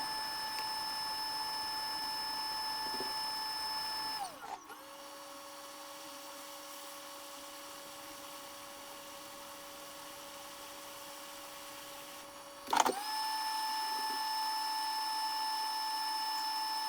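Hot-air rework station blower whining steadily. About four and a half seconds in it drops to a lower, quieter pitch, and near thirteen seconds it comes back up to full speed with a short click.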